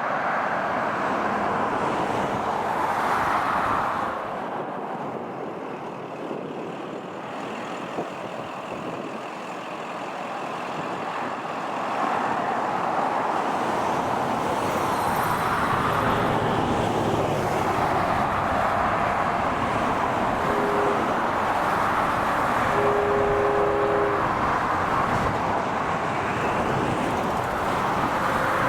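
Vehicle noise: a steady rolling rush that dips for several seconds, then swells again and holds. Two faint, brief tones sound near the end.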